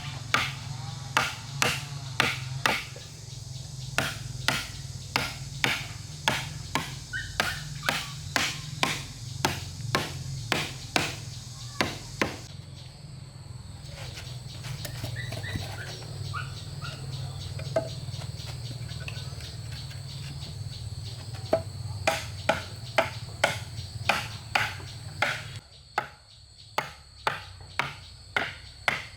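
Repeated strikes of a hand tool on wood, about two a second, with a break of several seconds in the middle, over a steady low hum that stops near the end.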